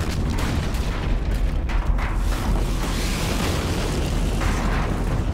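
Film sound effects of a wooden shed blowing up and burning: a continuous deep rumble of blast and fire, with sharp cracks of debris through it.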